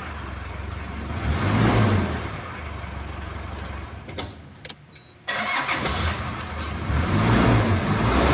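Toyota 1KZ 3.0-litre turbo-diesel four-cylinder engine running, idling and revved up twice, about two seconds in and again near the end, to around 2,000 rpm. The sound drops out abruptly for about a second in the middle. The engine now runs and takes revs after a no-start caused by the ECU not switching on the EFI relay.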